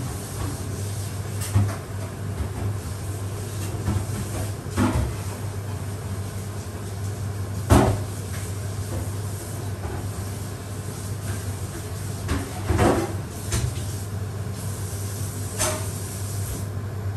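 Pot of creamy carbonara simmering on a gas hob burner: a steady low hum with a handful of single pops and knocks spread a few seconds apart, the loudest about eight seconds in.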